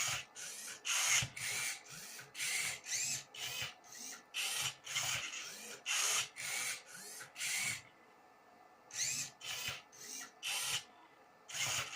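A Rubik's cube solving robot's motors turning the cube's faces one move after another: a rapid run of short whirring, grinding turns, each with a whine that rises and falls, and the plastic cube layers rubbing as they rotate. The moves come in quick succession with a pause of about a second around eight seconds in.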